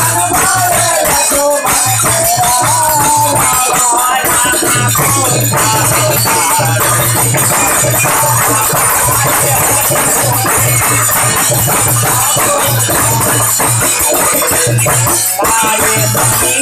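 Live Chaita folk song: a man sings into a handheld microphone over fast, steady rattling percussion and a repeating low beat. The voice is strongest in the first few seconds and again near the end.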